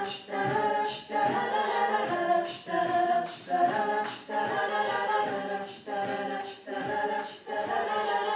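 A cappella vocal group singing the song's introduction as short, rhythmic, chopped chords in several voice parts, over an even beat of sharp percussive clicks.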